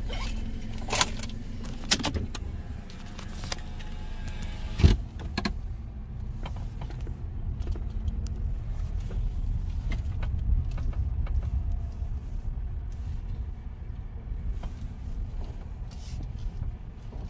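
A car's power window whirring shut and closing with a thump about five seconds in, then the car rolling slowly forward with a steady low engine and road rumble.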